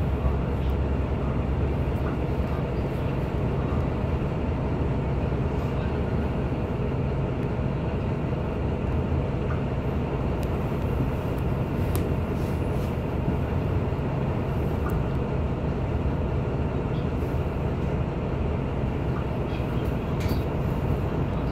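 Mercedes-Benz Citaro city bus's diesel engine idling steadily while the bus stands still, heard from inside the passenger cabin as a constant low hum.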